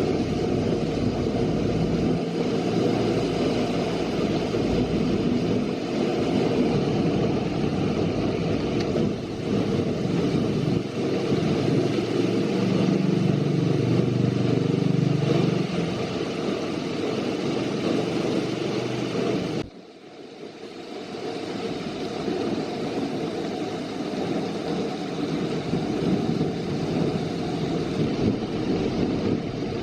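Heavy monsoon downpour with strong wind gusting over the microphone, a steady rushing noise. About twenty seconds in it drops off abruptly, then builds back up.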